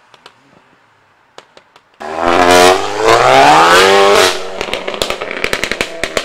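A tuned car's engine accelerating hard, starting suddenly about two seconds in, its note rising with a brief dip at a gear change. When the throttle is lifted, the exhaust gives a quick string of sharp pops and crackles.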